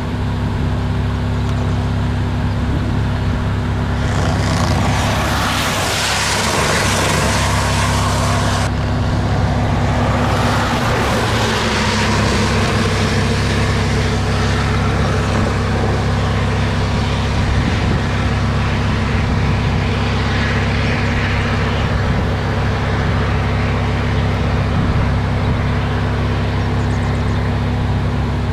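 A vehicle engine running steadily at idle, a low even hum. About four seconds in, a burst of rushing noise rises over it and cuts off suddenly some five seconds later; a weaker rush follows a little after.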